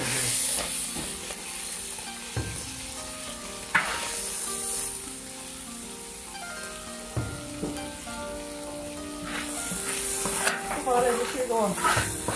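Stir-fried beef liver sizzling in hot oil while a metal ladle scoops it from the wok onto a plate, with a few sharp knocks of metal against the pan. Soft background music plays underneath.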